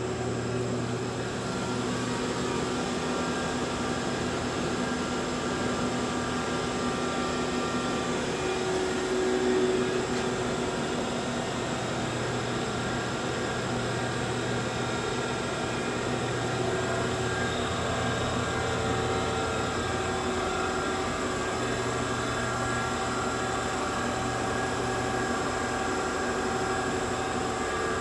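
Microcut Maxicut VMC1600F CNC vertical machining center running under power: a steady mechanical hum and whine whose tones change a few times.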